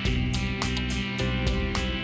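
Instrumental background music with a steady beat, about four beats a second.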